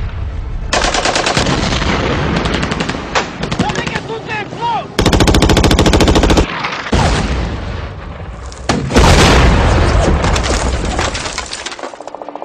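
WWII war-film battle soundtrack: repeated bursts of rapid machine-gun fire. The longest and loudest burst comes about five seconds in, and another heavy spell of fire follows a few seconds later.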